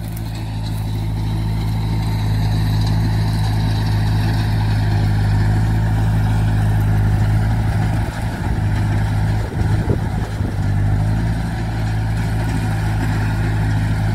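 Tractor's diesel engine running steadily under load, powering a Lely Welger round baler that is pressing straw. The drone grows louder over the first couple of seconds and wavers briefly about eight to ten seconds in.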